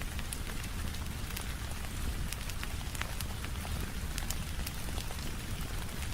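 Steady rain falling, with a wood fire crackling and popping in irregular sharp clicks over a low rumble.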